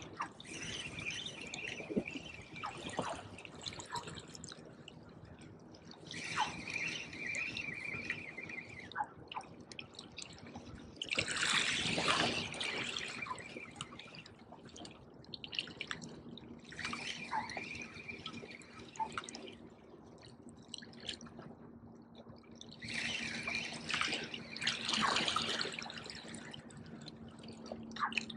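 Daiwa Certate 4000CXH spinning reel cranked in short spurts with pauses between, a stop-and-go retrieve of a blade bait, over water lapping against jetty rocks. The spurts come about five times, each lasting a couple of seconds.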